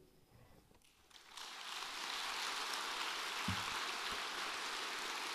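Audience applauding, starting about a second in after a brief hush and holding steady.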